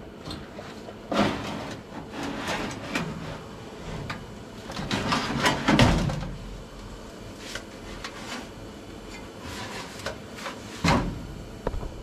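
Sheet-metal furnace blower assembly being slid out of its cabinet: irregular metal scraping and clunking, loudest about five to six seconds in, with a few more knocks near the end.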